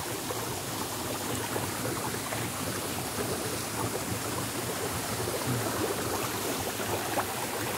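Mountain spring water rushing steadily through a stone channel.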